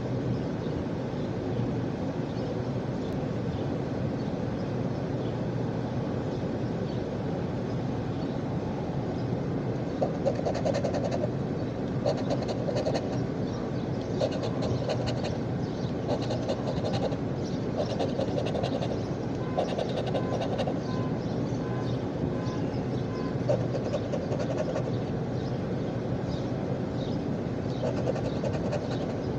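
A coin scratching the latex coating off a paper scratch-off lottery ticket, in short runs of quick rasping strokes that begin about ten seconds in and keep coming every second or two. Under it runs a steady low rumble.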